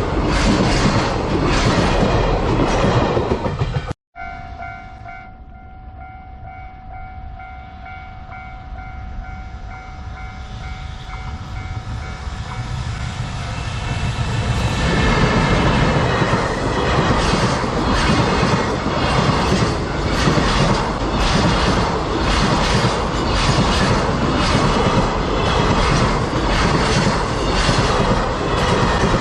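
Train passing over a level crossing, its wheels clicking in a steady rhythm over rail joints, cut off suddenly about four seconds in. The crossing's warning bell then rings as a steady tone while another train approaches, growing louder, and passes with the same rhythmic clickety-clack.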